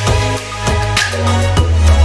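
Background music with a steady beat and a heavy, deep bass line.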